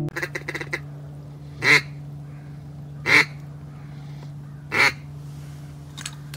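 A duck call blown by a hunter: three loud single quacks about a second and a half apart, after a quick run of short clicks at the start, over a steady low hum.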